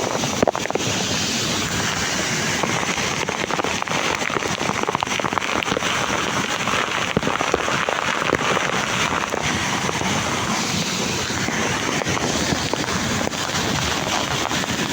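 Waterfall: a steady rush of falling water, with a couple of brief knocks about half a second in.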